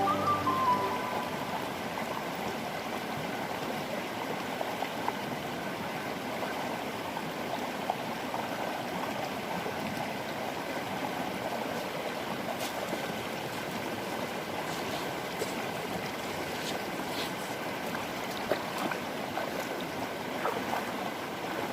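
Steady rushing of a flowing stream, with a few faint clicks in the second half.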